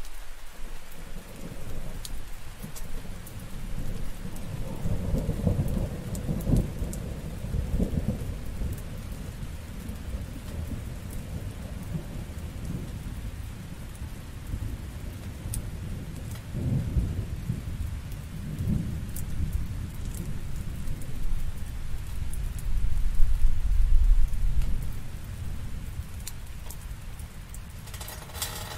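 Steady rain falling, with rolling thunder rumbling low underneath. The thunder sets in at the start and swells several times, loudest about three-quarters of the way through.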